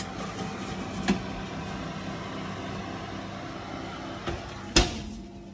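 A metal baking tray of small enamelled cocottes set into the oven with a light clink about a second in, then the oven door shut with a sharp knock near the end, over a steady hum.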